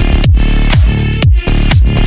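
Electronic dance music with a heavy kick drum on every beat, about two beats a second, briefly dropping out about one and a half seconds in.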